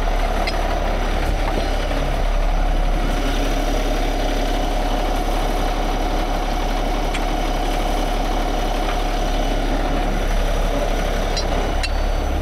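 Heavy diesel truck engine idling steadily, a constant low drone with a held mid tone, with a few faint clicks mixed in.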